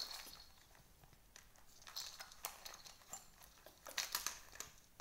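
Faint rustling and crinkling with scattered light clicks and taps as a baby monkey in a disposable diaper is handled and climbs over a manicure kit case and plastic toys, with a cluster of sharper clicks about four seconds in.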